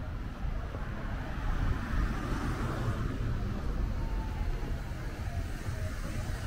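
Street traffic: a car passing, loudest about two to three seconds in, over a steady low rumble.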